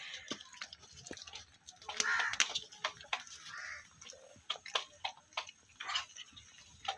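Several puppies eating curd rice from a plastic tray: a run of irregular wet smacking and chewing clicks.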